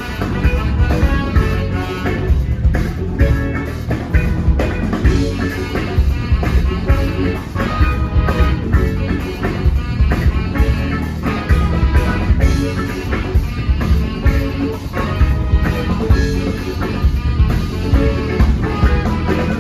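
A live band playing an instrumental with guitar, Hammond organ, bass, drums, percussion, trumpet and saxophone, over a steady drum beat.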